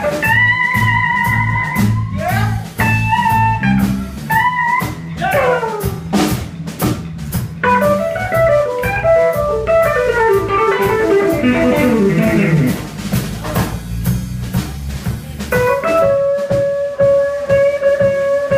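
Live blues-rock band playing an instrumental passage: a lead electric guitar solo with bent, held notes and a fast falling run about two-thirds of the way through, over drums, bass and rhythm guitar.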